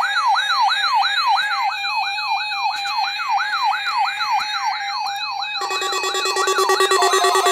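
Weather radio receivers sounding their alert alarm for a NOAA Weather Radio Required Monthly Test: a warbling siren alarm sweeping up and down about three times a second over a steady tone. A second receiver's fast-repeating beeping alarm joins about two-thirds of the way in.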